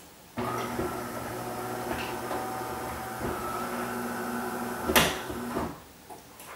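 Coffee machine running as it turns off: a steady hum with a hiss starts suddenly, a sharp click comes about five seconds in, and the sound stops soon after.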